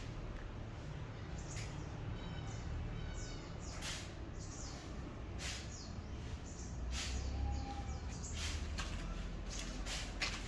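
Irregular sharp taps or knocks over a low rumble, with a few short chirps in the first half.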